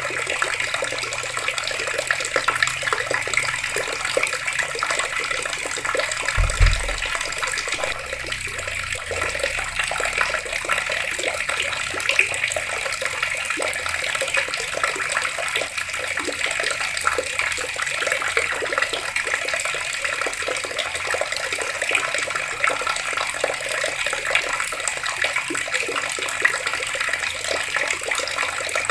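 Water running steadily from taps and splashing, an even hiss with no pauses. A single low thump comes about six and a half seconds in.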